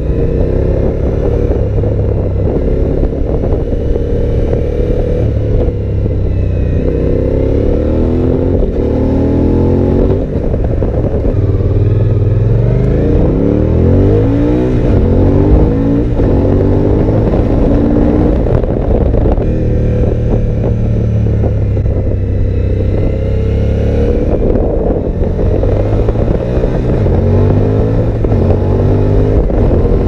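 Suzuki V-Strom 1000 XT's 90-degree V-twin with an Akrapovic exhaust, heard from the rider's helmet while riding. The engine note rises in pitch several times and drops back between, as the bike pulls through the gears.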